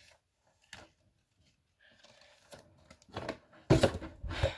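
Paper and card handling of a K-pop album and its photo card: a small click about a second in, faint rustling, then louder scraping and bumping over the last second and a half.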